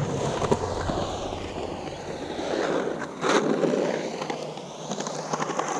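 Skateboard rolling and carving on concrete bowl transitions on hard 97A urethane Santa Cruz Slime Balls wheels: a continuous rolling noise that swells and fades, with one sharp knock about three seconds in.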